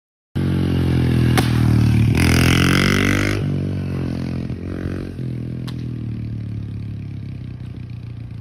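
An engine running with a low hum that bends up and down in pitch, with a loud burst of scraping noise about two to three seconds in and two sharp clicks. It cuts in and out abruptly.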